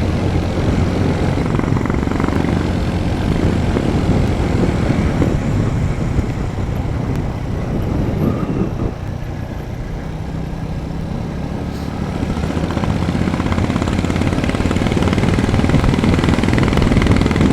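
Royal Enfield Bullet's single-cylinder engine running on the move, with wind noise on the microphone. The engine eases off about halfway through and picks up again near the end.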